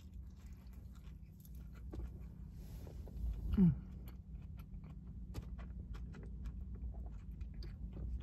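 Close-up mouth sounds of chewing a bite of cheesesteak sandwich: soft wet clicks and smacks throughout. About three and a half seconds in there is a short hum through the nose that falls in pitch.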